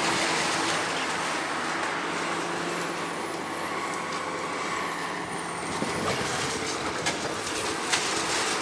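Komatsu PC400 hydraulic excavator with a demolition shear running steadily as it works the arm over concrete rubble, its diesel engine and hydraulics at work. A couple of sharp knocks come near the end.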